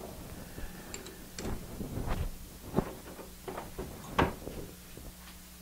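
Lathe chuck being loosened by hand to release a steel workpiece: a series of short metallic clicks and knocks, the sharpest a little after four seconds in, over a steady low hum.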